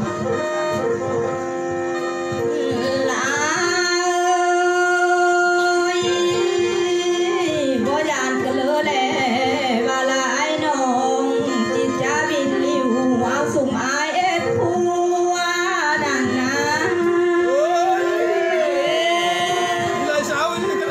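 Khắp Thái, Tai sung poetry: a voice singing a slow, heavily ornamented melody of sliding, wavering notes over a steady drone, with one long held note about four seconds in.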